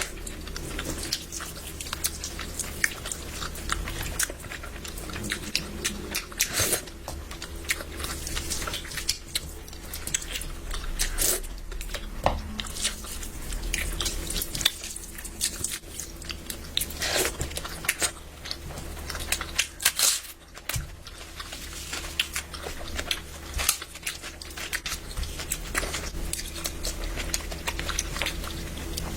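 A person chewing and biting food close to the microphone, with many short clicks of the mouth scattered throughout over a low steady hum.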